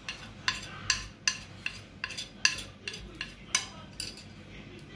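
A spoon tapping and scraping against a plate to knock cornflour onto chicken pieces in a steel bowl: a steady series of sharp, ringing clinks, about two or three a second.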